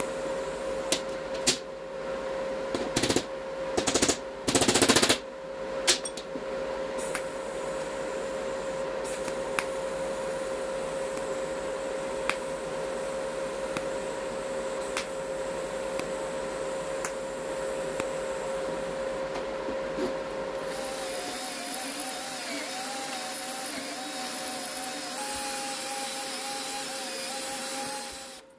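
A workshop power tool running with a steady whine, with several sharp, loud knocks in the first five seconds. After about twenty seconds the pitch rises and wavers and a hiss is added, and the sound cuts off abruptly at the end.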